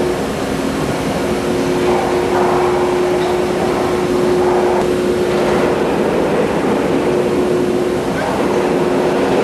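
Heavy drilling-rig machinery running steadily: a loud, even rumble and hiss with a few steady hum tones.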